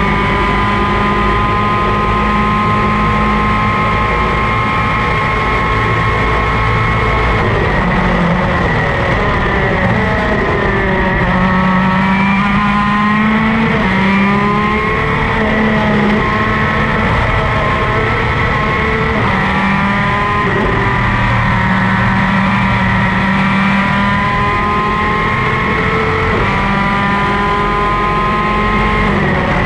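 Superkart's two-stroke racing engine at full race pace, heard onboard. Its note holds high, then drops and climbs again several times as the kart brakes and accelerates, over steady rushing noise.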